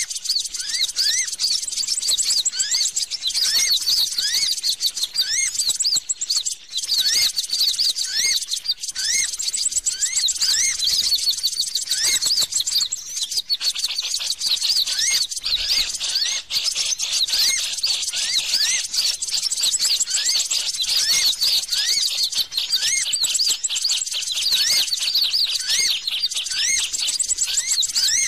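Bird-trapping lure call: a dense chorus of small birds' high chirps and twitters, over a short upward-sweeping chirp repeated about once a second.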